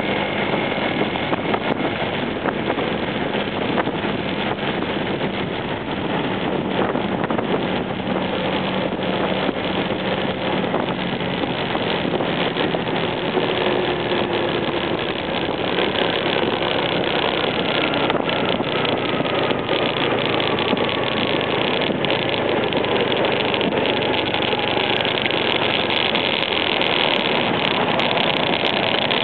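Honda PCX scooter's single-cylinder engine running steadily under loud, even wind rush over the microphone while riding at road speed.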